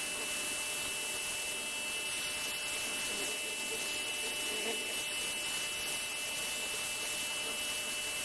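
Pressure washer spraying: a steady hiss of the water jet with a steady high whine running through it.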